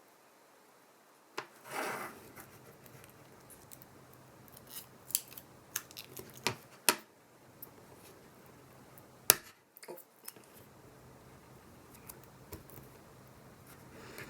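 Small hand tools clicking, tapping and scraping against the parts of an iPhone 7 opened for a battery replacement. The clicks come at irregular intervals, with a brief scrape about two seconds in and one sharp click about nine seconds in.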